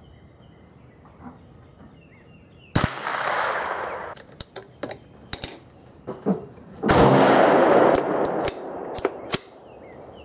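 Henry AR-7 semi-automatic .22LR rifle fired twice, the first shot under three seconds in and the second about seven seconds in, each ringing on under the covered range shelter. Between and after the shots come sharp metallic clicks of the action being worked to clear a failure to feed.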